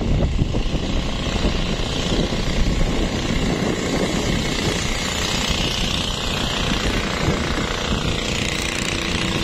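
A small boat engine running steadily.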